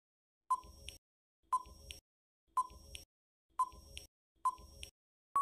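Countdown timer sound effect: five short beeps about one a second, then a longer steady beep begins right at the end.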